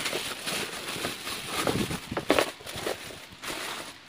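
Plastic wrapping rustling and crinkling as a ring light is pulled from its cardboard box, with a few sharper handling knocks, the loudest about two seconds in.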